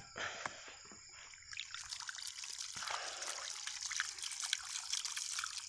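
Water trickling and splashing from a black rubber hose held in a hand. The sound gets fuller about a second and a half in.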